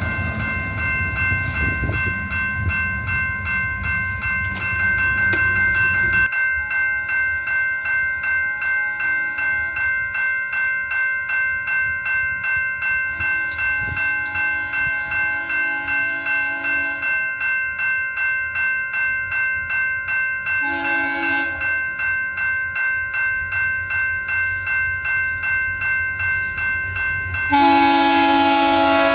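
A train rumbles past for the first few seconds. Then a level-crossing bell rings steadily at about one and a half strikes a second, with brief low horn tones in the background. Near the end a locomotive horn sounds loudly, its chord dropping slightly in pitch.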